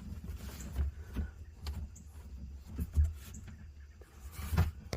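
Scattered light knocks and handling noise from hands working in a jet ski's battery compartment, unhooking the rubber straps that hold the battery down; the firmest knock comes about three seconds in.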